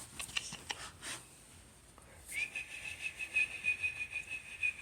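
A person whistling one long, steady high note that starts about halfway in, with a few light rustles and clicks before it.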